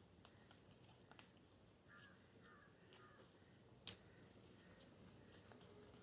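Near silence with faint handling of origami paper being folded: soft rustles and small clicks, and one sharper crackle of the paper about four seconds in.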